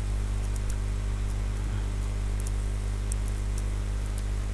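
Steady low electrical hum with hiss from the recording chain, with a few faint, short clicks scattered through it.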